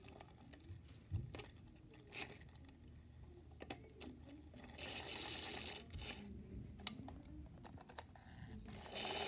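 Light plastic clicks and knocks of model train cars being handled and set back on the track, with two short rustles, one about halfway and one near the end.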